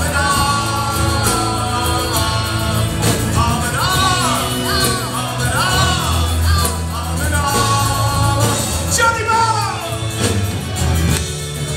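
Live rock band playing: drum kit, bass and electric and acoustic guitars, with a high, sliding lead melody line over them.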